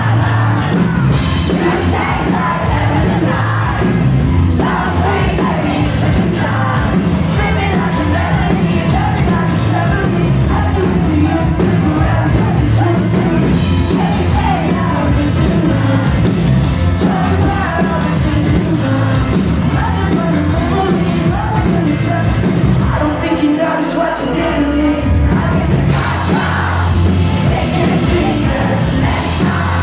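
Live indie pop-rock band playing amplified, with a lead singer's vocals and the crowd yelling and whooping along. About three quarters of the way through, the bass drops out for a moment and then comes back in.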